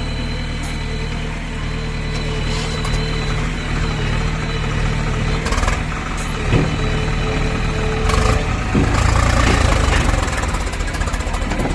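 Diesel engine running steadily near idle, with a few sharp knocks around the middle. It grows louder about eight seconds in.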